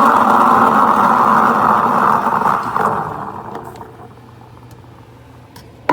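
Espresso machine steam wand frothing milk, a loud steady hiss that tapers off about three seconds in. A few small clicks follow, with a sharp click near the end.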